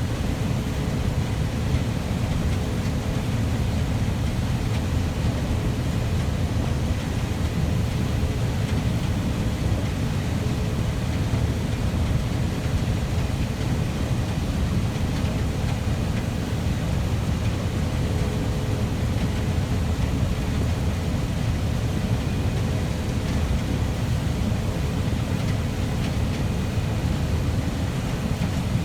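Steady drone of heavy farm machinery running at constant speed, with a thin steady hum over a deep rumble.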